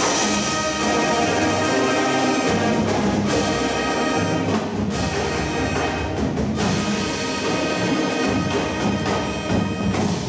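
Marching band playing its field show: full brass chords over percussion, punctuated by a few sharp ensemble hits.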